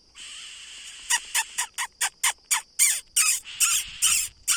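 Smooth-billed ani nestlings begging: a rapid series of short, harsh calls, about four a second, starting about a second in and growing louder and raspier toward the end.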